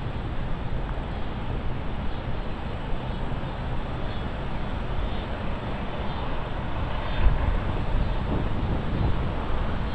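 Wind buffeting the microphone outdoors: a steady rushing noise with gusty low rumbles, one stronger gust about seven seconds in.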